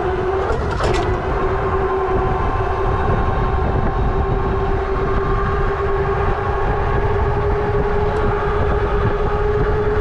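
Engwe EP-2 Pro 750 W e-bike riding flat out at about 50 km/h: a steady whine from the motor and fat tyres that creeps slowly up in pitch as the bike speeds up, over wind rumbling on the mic. There is a brief click about a second in.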